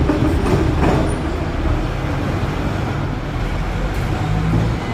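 Hong Kong double-deck electric tram running, a steady low rumble of motor and wheels on the rails.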